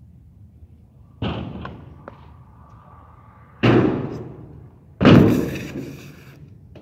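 Three bangs from a stunt scooter striking a skatepark quarter-pipe ramp, each ringing out for about a second. The first comes about a second in, and the last, about five seconds in, is the loudest.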